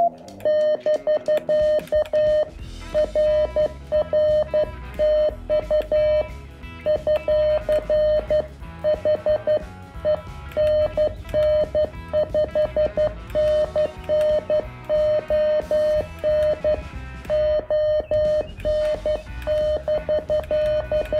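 Morse code sidetone from a Venus SW-3B QRP CW transceiver: a steady beep keyed on and off in dots and dashes as a paddle is worked, with a few short pauses between groups. Background music with drums and cymbals runs underneath.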